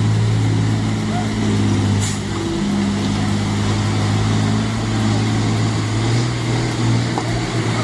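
A truck's engine running steadily under throttle, with small wavers in pitch near the end.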